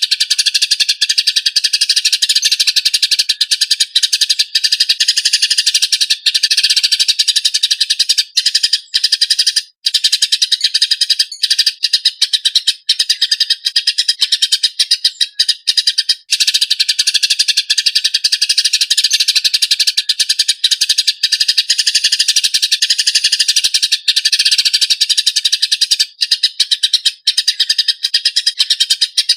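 Eurasian tree sparrow fighting chatter: a fast, tightly packed, harsh run of chirps with only a few brief breaks.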